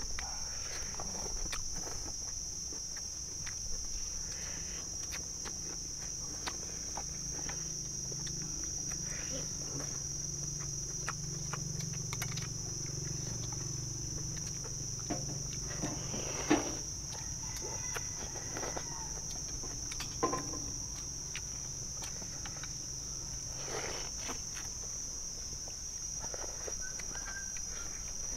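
Steady high-pitched drone of insects in the surrounding garden, with scattered light clicks of chopsticks and utensils against stainless-steel bowls as two men eat, and a couple of louder knocks about halfway through.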